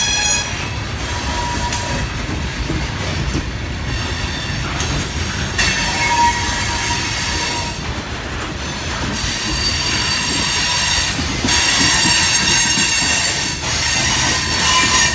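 Loaded coal hopper cars rolling through a curve, their steel wheels squealing against the rail in high, shifting tones over a steady low rumble. The squeal comes and goes, briefly at first and again about six seconds in, then grows loudest from about nine seconds on.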